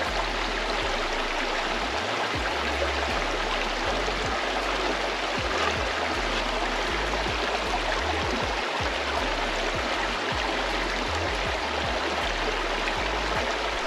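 Shallow river water running steadily over rocks, an even rushing wash.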